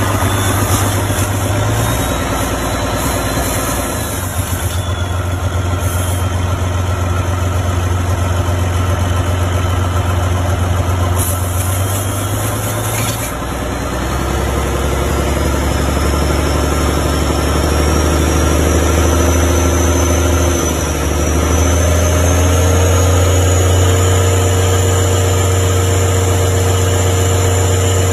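Isuzu 6WG1 inline-six common-rail diesel engine running steadily with a deep hum. The note shifts slightly about halfway through, and a faint high whine rises slowly in pitch in the second half.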